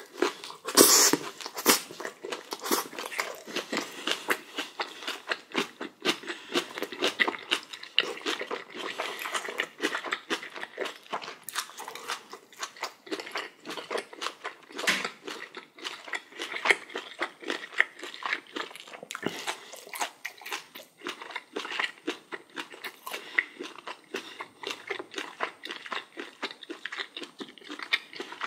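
A person chewing and crunching spicy kimchi with boiled pork: a steady run of quick crunches and mouth clicks, several a second.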